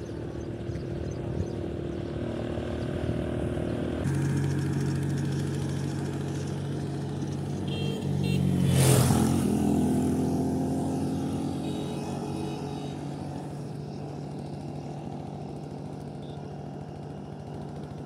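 A motor vehicle's engine running steadily while driving along a road, its note stepping up about four seconds in. About nine seconds in, another vehicle passes close by, loudest as it goes past, its engine pitch falling as it moves away.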